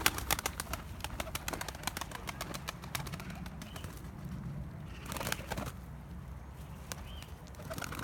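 A flock of domestic tumbler pigeons cooing softly while they peck at gravelly soil, with many small clicks from beaks striking grit. There is a brief rustle, likely wings, about five seconds in.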